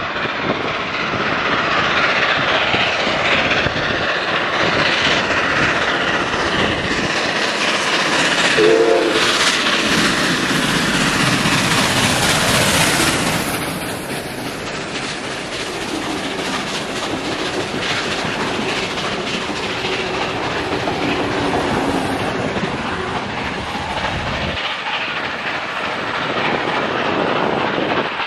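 Steam locomotive 5917, an NSWGR D59 class 2-8-2, running past at speed with its train of carriages, a dense clattering rail noise throughout. About nine seconds in, a short whistle sounds. After about 13 seconds the noise eases a little as the carriages clatter by.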